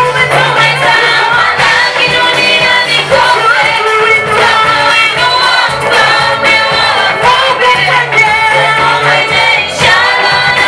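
Choir singing a gospel song over instrumental backing with a bass line that moves in held notes.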